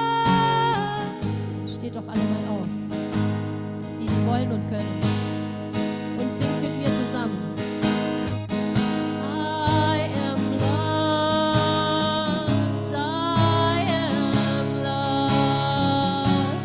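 Acoustic guitar strummed in steady chords under a voice singing long held notes without clear words.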